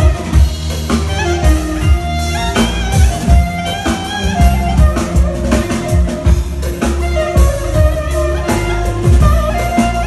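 Clarinet playing a melody over a backing of bass and a steady drum beat.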